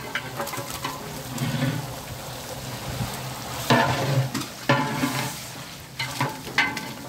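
Raw mutton pieces dropping into a large pot of hot oil and masala and sizzling as they fry, while a metal ladle stirs. A few sharp knocks from the ladle against the pot come in the second half.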